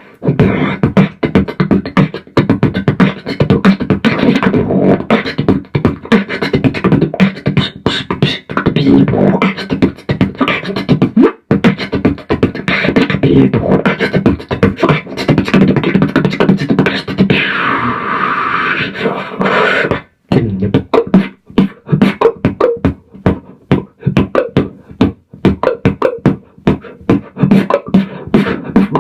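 Beatboxing into a microphone played through a small Crate TX15 amplifier: a fast, dense run of kick, snare and hi-hat sounds made with the mouth, with a longer hissing effect about two-thirds of the way in and a brief break just after.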